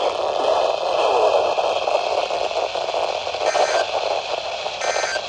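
NOAA Weather Radio reception hiss, then two short digital data bursts about 3.5 and 4.8 seconds in, about a second and a half apart. These are the Emergency Alert System (SAME) end-of-message code that closes the warning broadcast.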